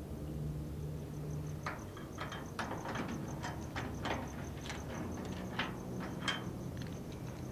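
Irregular metallic clicks and scrapes of a door handle and lock being worked by hand, a couple a second, starting a little way in and stopping near the end. A cricket trills steadily behind them.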